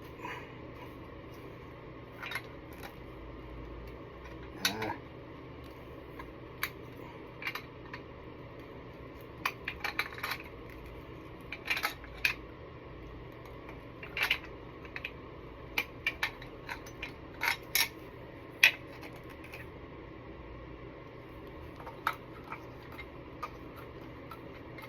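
Irregular metallic clinks and taps of hand tools working on the air compressor's old pressure regulator and its fittings, over a low steady hum.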